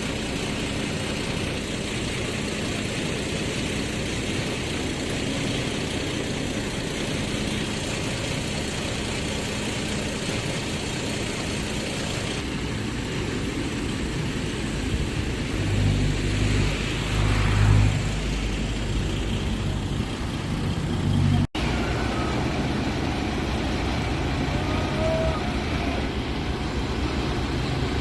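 Heavy vehicle's engine running steadily, with louder low rumbling surges a little past the middle; the sound cuts out for an instant about three quarters through.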